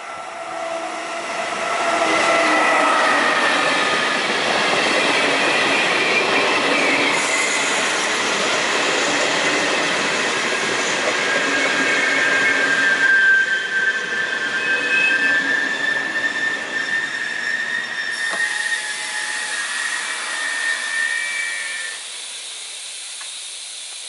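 FS E464 electric locomotive and its passenger coaches rolling slowly past while braking into a station, with a steady high-pitched squeal from the wheels. The squeal and rolling noise build up over the first couple of seconds and die away about twenty-two seconds in.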